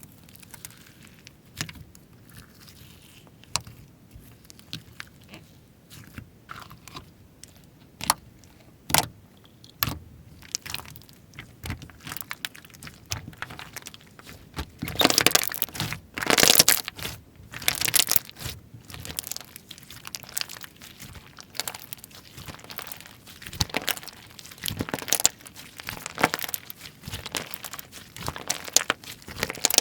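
Slime being squeezed, stretched and pressed by hand, giving a run of crackling clicks and pops. The clicks are sparse at first and grow denser and louder about halfway in, with the loudest crunches just past the middle.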